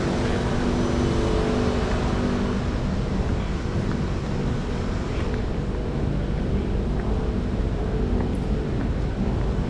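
Steady low rumble of an underground MRT platform with the train still standing at it; the train's hum fades over the first few seconds.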